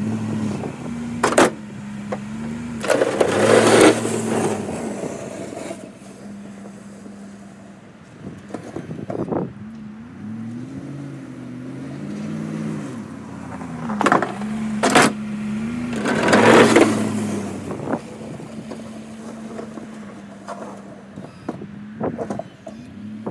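A pickup truck with a snow plow runs its engine, its pitch rising and falling as it backs up and pulls forward. A few sharp knocks and two louder rushing bursts of noise come as it clears snow.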